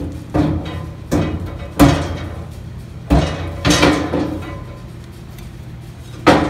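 Heavy steel door of a Gardall depository safe being worked onto its hinge pins: a string of about six metal clanks and knocks, each ringing briefly. The loudest come about two seconds in and just before the end.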